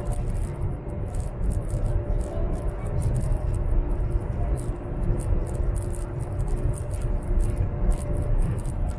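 Steady low rumble of a high-speed train carriage at speed, heard from inside the cabin, with faint steady hums over it.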